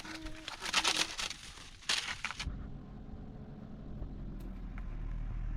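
Crackling, crunching noise for about two seconds, which cuts off abruptly; then a vehicle engine's low rumble builds and runs steadily.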